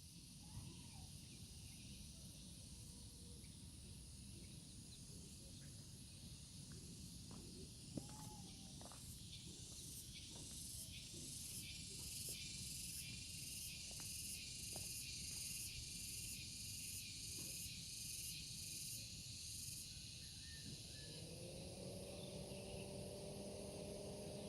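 Faint outdoor insect chorus, a steady high buzz, with one insect calling in regular pulses of about one and a half a second through the middle stretch, over a low rumble. Near the end a steady low hum with a few even tones comes in.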